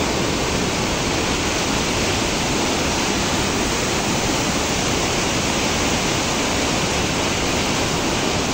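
A swollen, muddy river in flood rushing past in a steady, unbroken torrent of fast floodwater.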